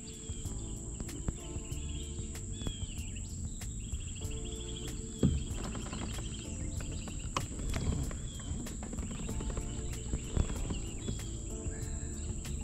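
Outdoor summer ambience: insects droning in a constant high whine with rapid ticking, and birds chirping in short repeated phrases. Scattered knocks and clicks, the loudest about five seconds in.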